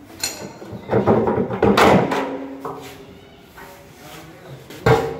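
Stainless-steel inner drum of a front-load washing machine being pulled out of its plastic outer tub: a cluster of scraping and knocking about a second in, with brief metallic ringing after it, then one sharp thud near the end.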